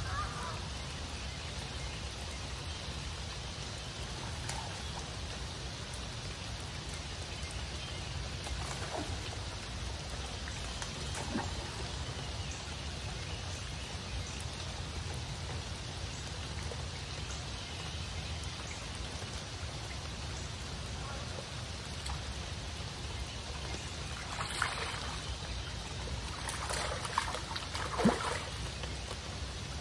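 Steady rain falling on the river surface. Near the end, a few short splashes come from a hooked fish thrashing at the surface.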